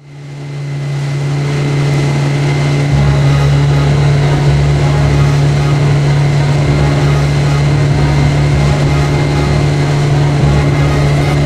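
Boat's outboard motor running at speed, a steady drone that fades in over the first couple of seconds. A deeper rumble joins about three seconds in.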